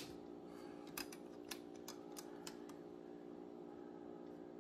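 Light clicks and taps of plastic Snap Circuits parts being handled and fitted onto the plastic base grid, a handful of small clicks over a steady faint hum.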